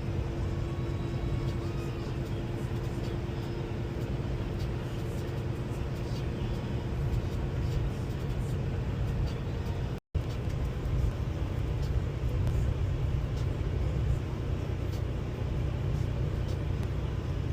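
Semi truck driving down the highway: a steady low rumble of engine and road noise, with a brief dropout to silence about ten seconds in.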